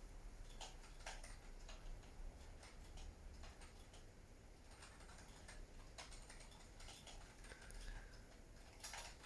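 Near silence: room tone with faint, irregular soft clicks.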